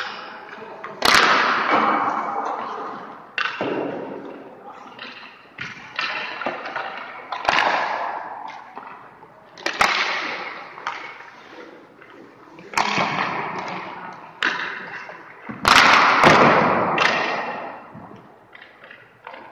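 Ice hockey goalie drill: about ten sharp puck shots or strikes, one every second or two, each followed by a scraping hiss of skates on ice that fades over about a second.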